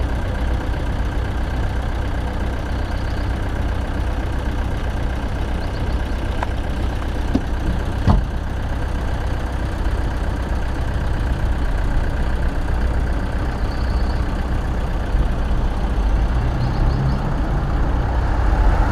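Vehicle engines idling in stopped city traffic: a steady low rumble, with one short knock about eight seconds in.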